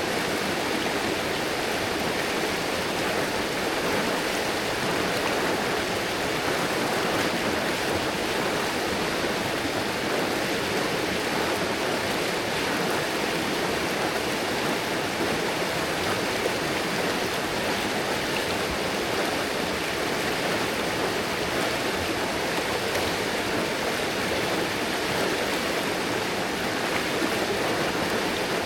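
River water rushing steadily over rocks, an even, unbroken flowing sound.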